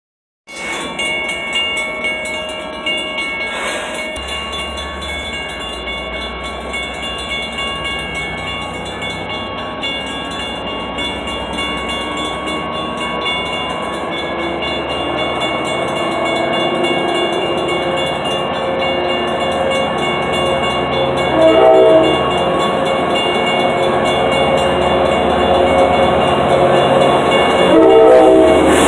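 Metra F59PHI diesel locomotive approaching, its sound growing steadily louder as it nears. It gives two short horn blasts in the last third.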